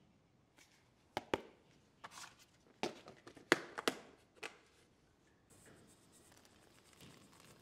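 A quick run of sharp clicks and taps, about a dozen over three seconds, then a steady faint hiss of the steaming brew kettle from about two-thirds of the way through.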